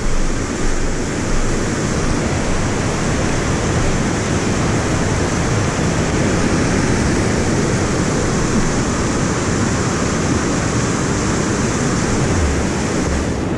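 Steady rushing of a swollen, muddy stream flowing across a dirt track: a loud, even hiss with no break.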